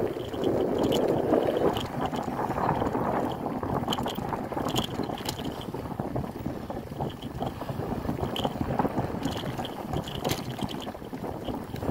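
Bicycle rolling over a dirt trail: steady tyre noise on the gravelly surface with wind buffeting the microphone and scattered light rattles and clicks from the bike.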